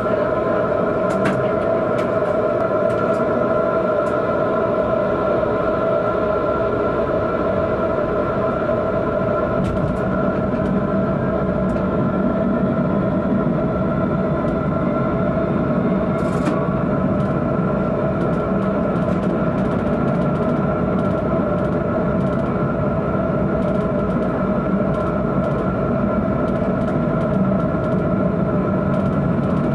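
Tram running along street track, heard from the driver's cab: a steady whine over the rumble of wheels on the rails, with scattered light clicks.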